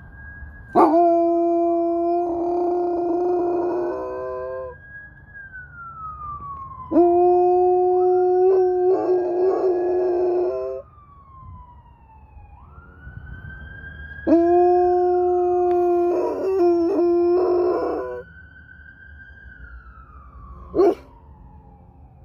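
Airedale Terrier howling three times, each a long, steady-pitched howl of about four seconds, over a fainter wailing siren that rises and falls slowly. The dog is howling in response to the siren.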